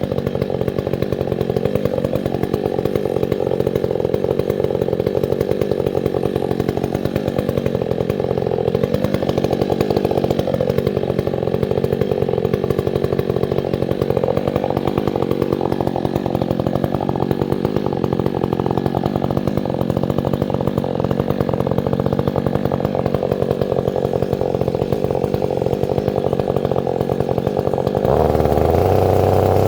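Chainsaw running steadily at high speed, its pitch wavering a little, then revving higher near the end.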